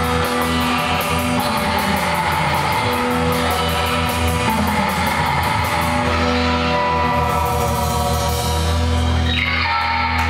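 Live surf rock band playing loudly: two electric guitars, electric bass and drum kit. The cymbal beat stops about six seconds in, leaving held guitar and bass notes ringing.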